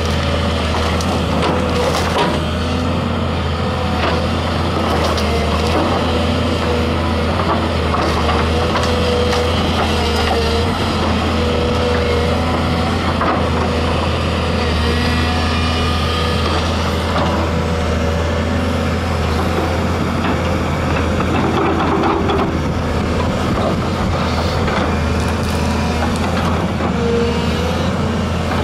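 Volvo EC210B excavator's diesel engine running steadily under load as its bucket and thumb shove and grab a pile of brush, with a hydraulic whine that comes and goes and branches cracking and snapping throughout.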